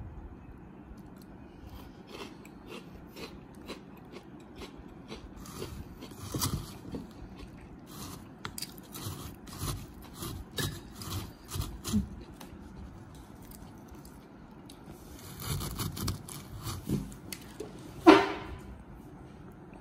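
Metal spoon scraping and digging through crunchy chocolate-coated crispy balls in a plastic jar, with scattered clicks and rattles as the pieces shift. Near the end comes one sharp knock, the loudest sound.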